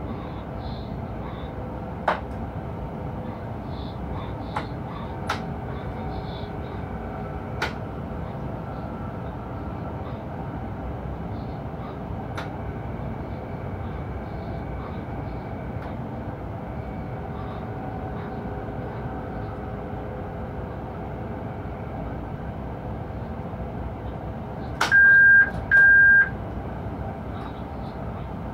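Steady running noise inside the cab of an electric locomotive hauling a freight train, with a few sharp clicks in the first half. Near the end, two loud short electronic beeps at one pitch sound from the cab equipment.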